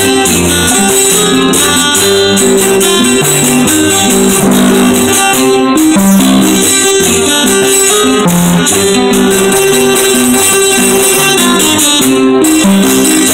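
Puerto Rican cuatro picking a melodic instrumental interlude over strummed guitar and hand percussion, the instrumental break of a jíbaro seis between sung décimas.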